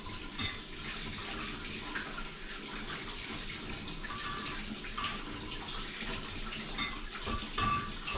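Water running steadily from a kitchen tap while hand-mixer beaters are washed under it, with a few knocks and clinks from handling them in the sink.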